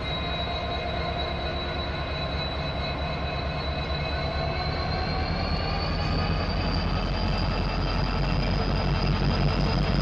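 Norfolk Southern diesel locomotives hauling empty covered hoppers, approaching slowly and getting steadily louder: a low engine rumble under a high steady whine that climbs in pitch about halfway through.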